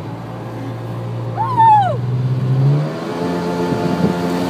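Motorboat engine running and speeding up under the load of a towed tube, its note climbing from about three seconds in. A short rising-and-falling cry sounds about a second and a half in.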